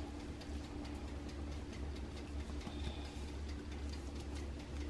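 Faint light ticks and soft scrapes of a wooden spoon spreading a thick butter mixture onto an ear of corn, over a steady low hum.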